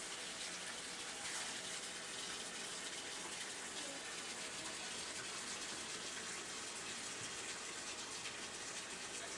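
Water running steadily from a bathtub tap as the tub fills.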